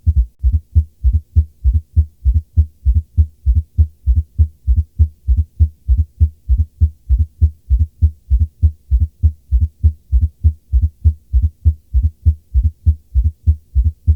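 Heart sounds heard through a stethoscope: the first and second heart sounds (lub-dub) repeating as short, low thumps in a steady, regular rhythm, nearly three thumps a second.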